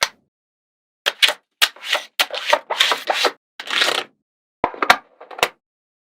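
Small magnetic balls clicking and rattling against each other as they are snapped into place: a quick run of sharp clicks and short rattles, then a few single sharp clicks near the end.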